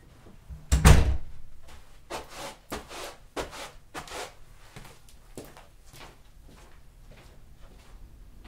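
Recorded everyday household noises: a heavy thump about a second in, followed by a string of short knocks and scrapes that thin out over the next few seconds.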